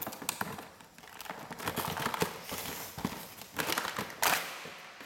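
Irregular clicks, knocks and rustling of a cardboard-and-plastic action-figure pack being handled and opened by hand, with a sharper burst a little after four seconds in.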